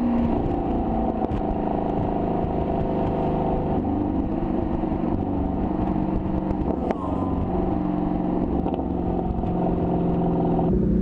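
Exhaust of a 2017 Camaro SS's 6.2-litre LT1 V8, heard right at its quad-tip MBRP axle-back exhaust, running steadily under light load. The engine note steps up slightly about four seconds in.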